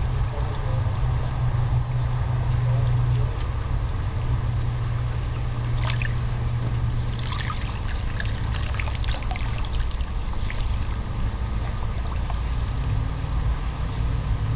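Pool water sloshing and splashing around a person wading waist-deep, with a cluster of small splashes in the middle, over a steady low hum.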